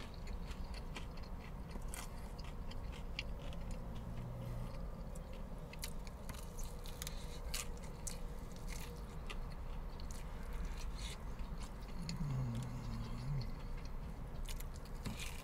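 A person chewing and tearing crispy fried chicken close to the microphone: a steady run of small crunches and wet clicks. Two short closed-mouth hums come about four seconds in and again near the end.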